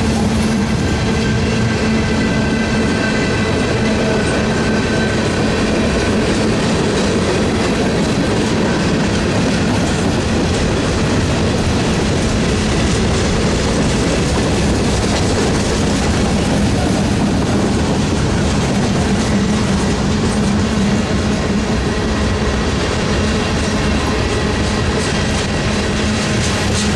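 A train running past close by: a loud, steady rumble of wheels on the rails, with a faint high squeal in the first few seconds.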